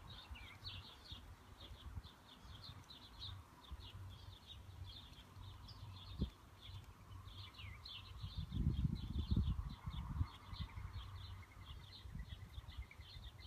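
Small birds chirping in a steady stream of quick, high notes. A brief low rumble, the loudest sound, comes about nine seconds in.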